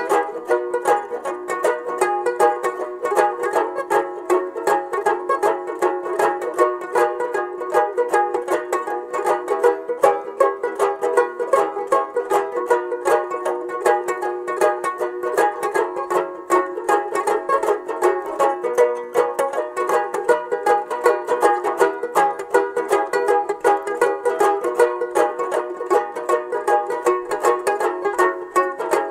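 Background music: a fast plucked-string tune with rapid, evenly picked notes throughout.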